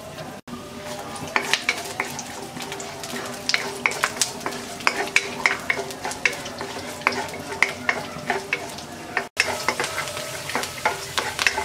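Halved blanched almonds frying in a little oil in a kadai, sizzling steadily, while a spatula stirs them and clicks against the pan several times a second.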